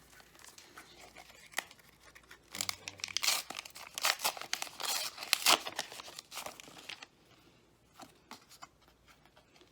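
A small Pokémon card pack wrapper being torn open and crinkled by hand, a run of dense crackling tears in the middle, then a few light clicks.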